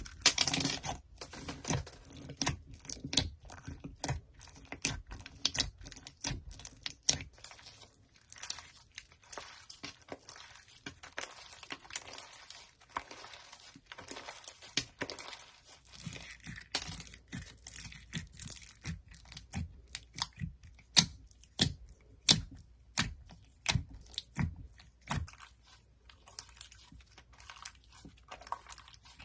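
White slime mixed with small foam beads being pressed, stretched and pulled by hand: irregular sticky pops and crackling clicks, denser in the first second.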